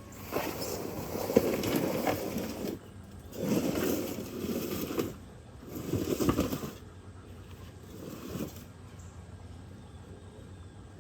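Potting soil being scooped and poured into a bin: three long gritty pours, then a shorter one about eight seconds in.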